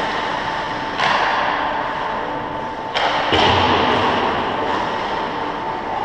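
Ice hockey game in a rink: two sharp knocks about two seconds apart, the second louder, each ringing on in the arena, over a steady hum.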